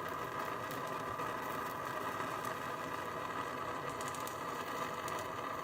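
Propane torch flame burning with a steady hiss against a fluxed copper ring terminal, heating it until the flux bubbles and it is hot enough for solder. A few faint crackles sound about four seconds in.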